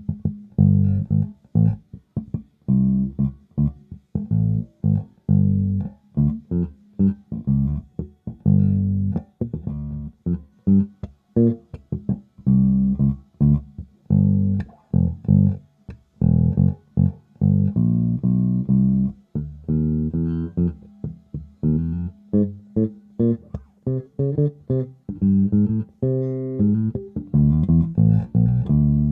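Momose MJ-Kyozakura II Jazz Bass-style electric bass played solo, a run of plucked notes and short phrases with brief gaps between them.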